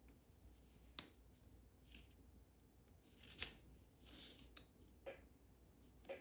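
Faint, scattered small clicks and short scrapes of a tool working at the retaining C-clip on a lock cylinder: about four sharp clicks, with two brief scraping sounds between them.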